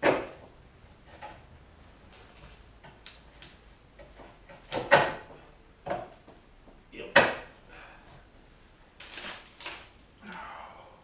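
Sharp metallic clanks and knocks from hand tools and parts being handled while changing the carbide runners on a snowmobile ski: three loud ones, right at the start, about five seconds in and about seven seconds in, with lighter taps between. A brief rustle follows about nine seconds in.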